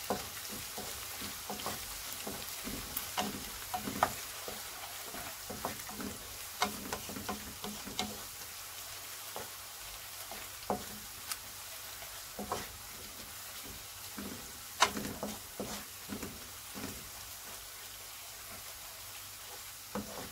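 Sliced onions sizzling as they fry in oil toward golden brown in a non-stick pan. A wooden spatula stirs them, its irregular taps and scrapes on the pan the loudest sounds, thinning out near the end.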